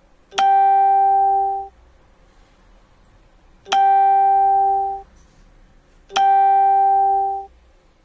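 Electronic tone sounding three times at one steady pitch, each held about a second and a quarter, starting with a click and cutting off abruptly.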